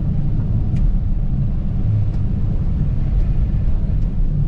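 A road vehicle driving, with a steady low rumble of engine and road noise.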